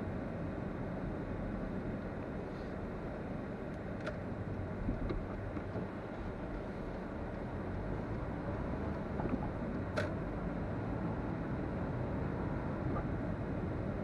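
Steady low rumble of road and engine noise from a car being driven, with two short sharp clicks about four and ten seconds in.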